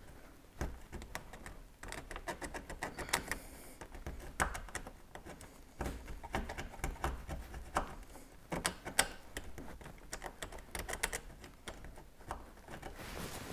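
Small sharp screwdriver scraping paint off the steel body of a classic Mini around a drilled pilot hole: a quick, irregular run of scratches and clicks as the bare metal is cleaned for an earth connection.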